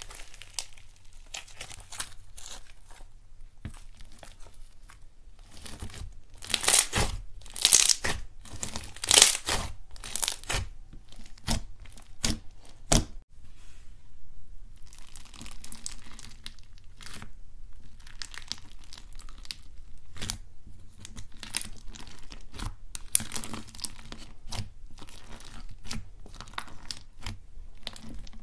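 Hands squeezing, stretching and pressing slime studded with foam beads, giving a dense run of crisp crackles, sticky tearing and small popping clicks. The loudest, busiest stretch comes about six to eleven seconds in. A short break about halfway through is followed by steadier, softer crackling.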